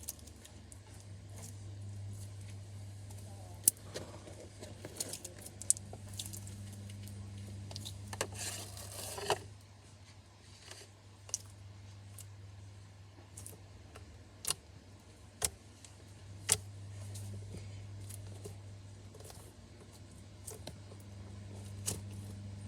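Slime being handled close to the microphone: scattered sharp pops and clicks, with a longer crackling squish lasting about a second around eight seconds in. A steady low hum runs underneath.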